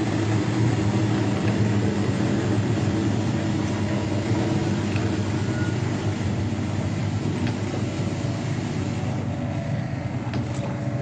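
Egg washing machine running: a steady low motor hum with rushing noise, and a few faint clicks near the end.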